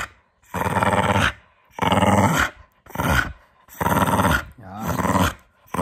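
A dog grumbling and growl-talking in five drawn-out vocal bursts about a second apart, a playful, contented growl that the owner takes for the dog being happy with him.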